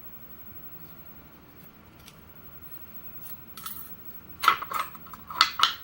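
Small metal lock parts clattering: the pins and springs of a six-pin lock cylinder tipping out into a pinning tray as the lock is gutted. It comes as a few quick rattling clicks, starting a little past halfway, with the loudest two bursts near the end.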